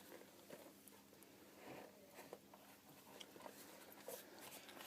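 Faint handling noises: scattered light clicks and brief rustles over near silence, as of boots and packaging being moved about.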